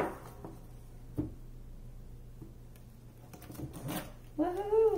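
Tarot cards being handled: a sharp card slap at the start, a light tap about a second in, and faint shuffling around three to four seconds. A short hummed 'hmm' near the end, rising then falling in pitch.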